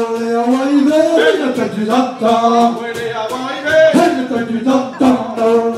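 Two wind instruments playing a Breton gavotte dance tune together, one melody line moving note to note without a break.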